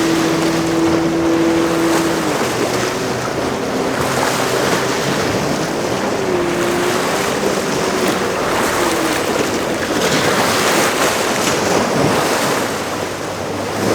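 Motorboat engine running over rushing water and breaking waves, with wind buffeting the microphone. The steady engine note drops away about two seconds in and then wavers in pitch as the boat works through the waves.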